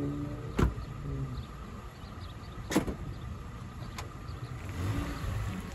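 2010 Ford Ranger pickup with its 2.3-litre four-cylinder running low as it pulls away. A sharp door-shutting knock comes about half a second in and a second knock about two seconds later, and the noise swells near the end as the truck moves off.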